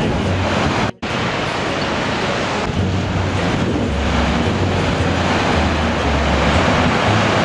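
Heavy surf breaking on a rocky shore in a strong wind, with gusts buffeting the microphone in uneven low rumbles. The sound cuts out for an instant about a second in.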